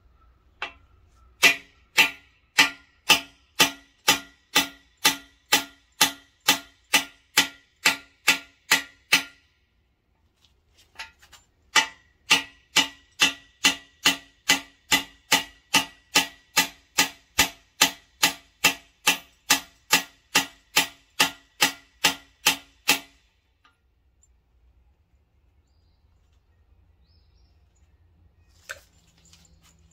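A two-pound hammer striking a socket driving tool to drive a brass freeze plug into the cast-iron block of a Mopar 318 V8. Steady ringing metal blows about two a second, in two long runs with a short pause and a few light taps between. One more single knock comes near the end.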